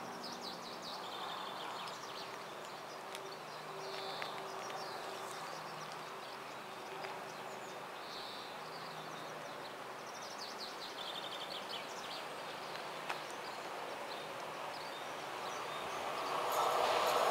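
Birds chirping over faint open-air background noise. In the last few seconds the rumble of an approaching freight train, hauled by an ET22 electric locomotive, rises steadily in level.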